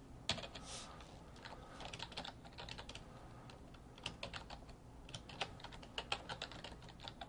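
Typing on a computer keyboard: quick, irregular keystrokes in short runs with brief pauses between them.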